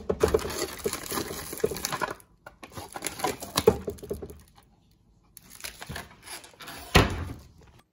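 Crinkling and rustling of a packet of seafood breading mix being pulled off a pantry shelf and handled, in several bouts, with a single sharp knock about seven seconds in.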